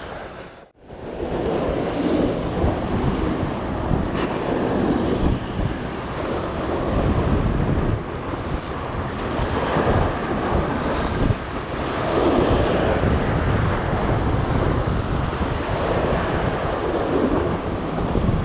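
Sea waves surging and breaking against a concrete sea wall, with wind buffeting the microphone. The wash swells and eases in irregular surges.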